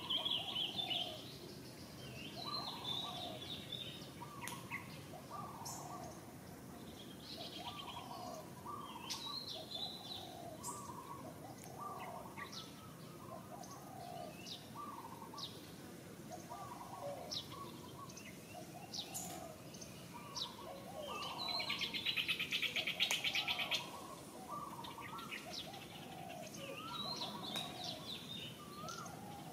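Forest birds calling: a lower two-note call repeats about every second and a half, with higher chirps over it. About 21 seconds in, a dense buzzing sets in for about three seconds and is the loudest sound.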